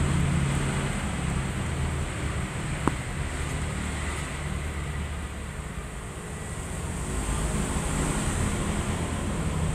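Steady background rumble and hiss with a single sharp click about three seconds in.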